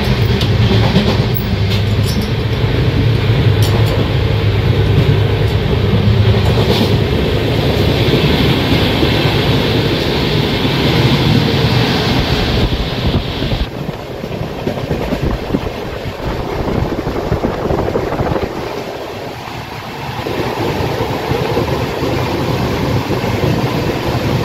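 Passenger train running along the track, heard from inside the coach: a steady running noise of wheels on rail. It eases off somewhat a little past the middle and builds again near the end.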